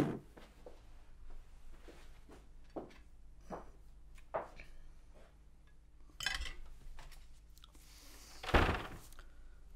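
Cutlery clinking and tapping against plates and glasses at a dinner table: light, scattered clinks every half second or so, with one louder short noisy sound near the end.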